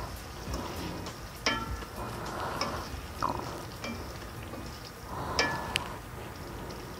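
A wooden spatula stirs chicken giblets and feet simmering in a thick masala gravy in a metal karahi, with a steady sizzle. The spatula knocks sharply against the pan a few times, loudest about one and a half seconds in and again about five and a half seconds in.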